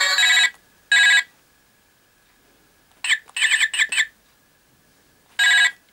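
Toy desk telephone's electronic ringtone: two short buzzy ring bursts, then a quick run of four rising warbling chirps about halfway, then two more buzzy bursts near the end.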